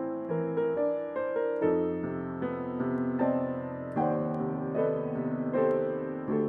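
Hailun grand piano played solo, a lullaby melody with notes struck a few times a second over held lower notes.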